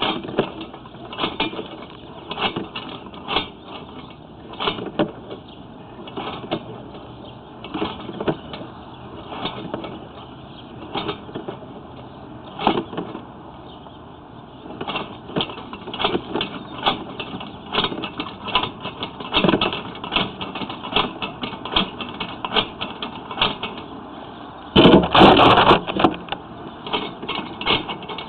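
Sewer inspection camera's push cable being fed down the sewer line: irregular clicks, knocks and rattles, with a louder scrape lasting about a second near the end.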